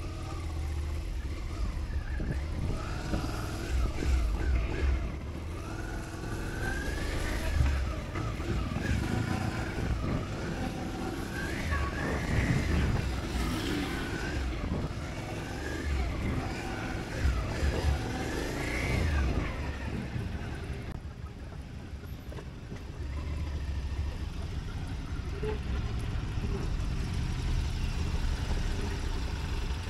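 Motorcycle engine running at low speed, its revs rising and falling repeatedly as it is ridden through tight turns on half clutch with throttle blips. It eases off briefly about two-thirds of the way through.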